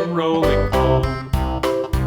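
Background music: an upbeat instrumental tune with plucked guitar over a steady bass beat.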